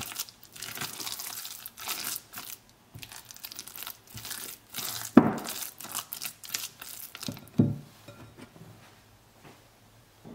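A spatula stirring and scraping a thick, wet ricotta and grated-cheese mixture in a glass bowl: irregular squelching and scraping strokes, with two louder thumps about five and seven and a half seconds in.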